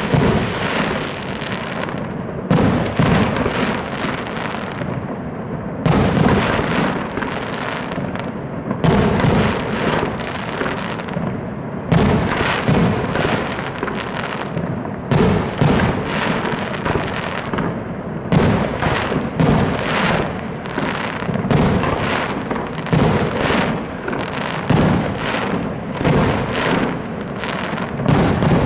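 Fireworks display going full tilt: a continuous barrage of shell bursts and bangs over a steady crackle, with heavier booms standing out every two to three seconds.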